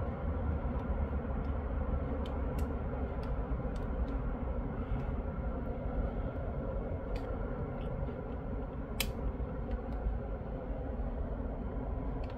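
Steady low rumble of road traffic passing through a junction, with scattered faint clicks and one sharper click about nine seconds in.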